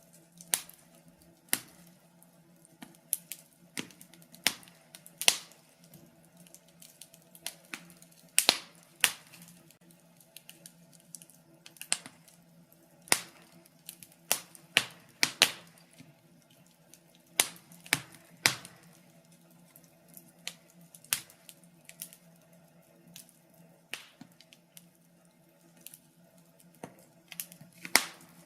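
Wood fire crackling in a fireplace: irregular sharp pops and snaps, sometimes in quick clusters, over a faint steady low hum.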